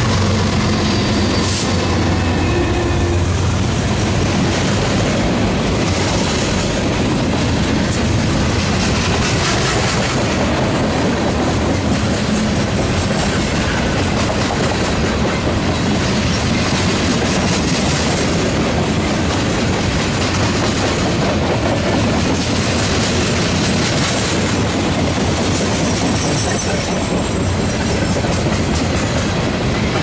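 Freight train passing close by: the last of the GE diesel locomotives' engines fades over the first few seconds, then a long string of steel coke hopper cars rolls past, wheels running on the rails with repeated clicks.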